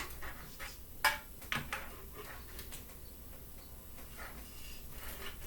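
Parts of a laser engraver frame being handled and slotted together: a few sharp clicks and knocks in the first two seconds, then faint handling noise.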